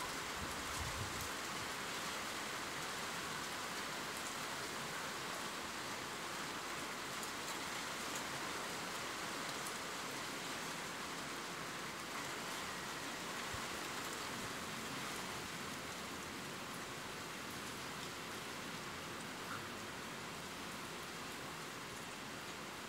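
Steady rain falling, a continuous even hiss of many drops with no let-up.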